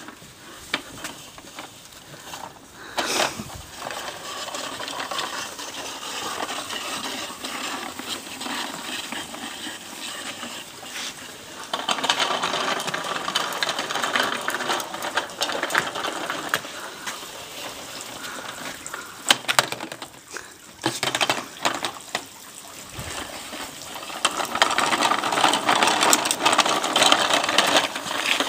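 Plastic wheels of a toy shopping trolley rolling and rattling over paving slabs, with many small clicks and knocks as it is pushed along, louder in two long stretches.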